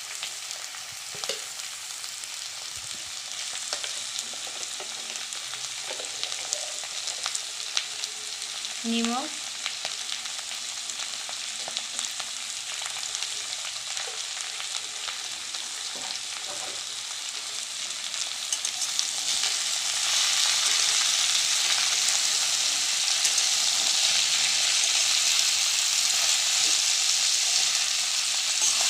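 Taro stolons and potato pieces sizzling in hot mustard oil in a wok. The sizzle gets clearly louder about two-thirds of the way in, and near the end the vegetables are stirred.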